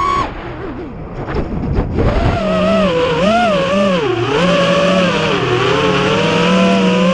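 FPV racing quadcopter's electric motors whining, the pitch climbing and then cutting off sharply as the throttle is dropped. For about two seconds only low rumble and a few knocks are heard, then the motors spool back up, and the whine rises and falls with the throttle.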